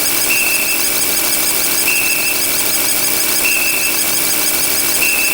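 Sound-effect referee whistle, short high blasts repeating about every second and a half over a steady hiss.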